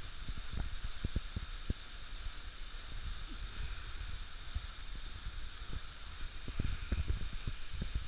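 Steady hiss of a waterfall pouring into a pool, with irregular low knocks of water lapping at the camera held at the surface, busiest near the start and again near the end.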